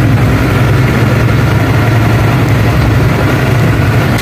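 Ashok Leyland truck's engine running with a steady low drone as the truck drives, heard from inside the cab.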